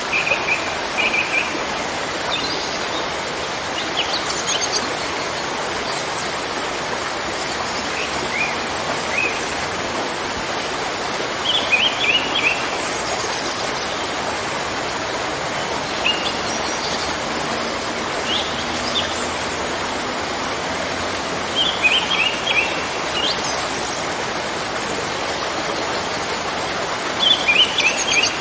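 Steady rushing of a waterfall, with birds chirping in short bursts every few seconds over it.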